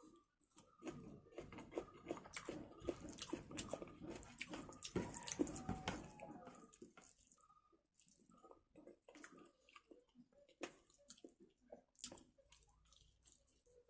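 Close-up wet eating sounds of rice and chilli chicken gravy: chewing, with wet clicks and smacks. Dense for the first several seconds, then thinning out to scattered clicks.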